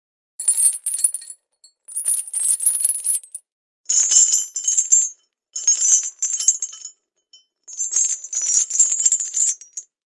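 Small metal chain clinking and jingling as it is handled and hooked on, in five short bursts of a second or so each with silence between.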